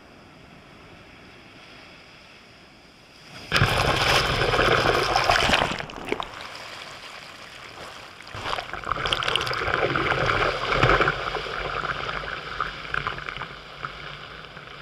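Sea waves surging up a beach and washing over rocks: a faint hiss, then a sudden loud rush of water about three and a half seconds in that dies away, and a second longer surge of fizzing foam from about eight seconds on.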